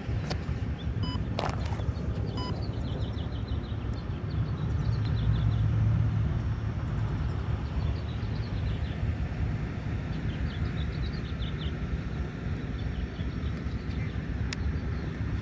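Outdoor background of a steady low rumble that swells about four to seven seconds in, with small birds chirping in short quick series of high notes.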